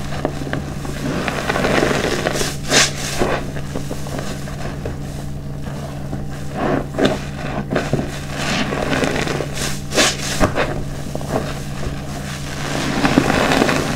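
Hands squeezing and kneading a soaked car wash sponge in a basin of foamy dishwashing-detergent water: continuous wet squelching and sloshing, with several sharper squishes and splashes. A low steady hum runs underneath.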